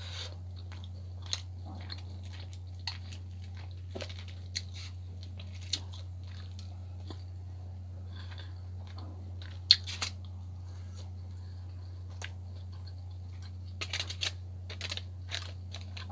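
Close-miked chewing of a mouthful of baked salmon, with scattered sharp clicks and smacks, the loudest about ten seconds in and a short cluster near the end, over a steady low hum.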